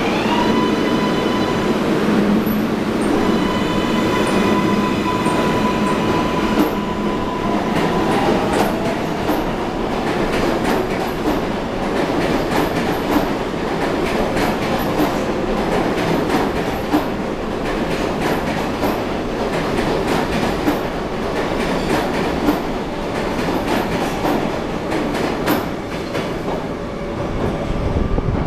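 Converted R188 subway train leaving the station. Its traction motors whine at a steady pitch for the first several seconds. After that the wheels click over the rail joints again and again as the cars roll past.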